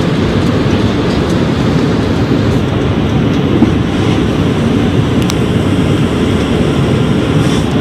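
Jet airliner's engines heard as a loud, steady low rumble.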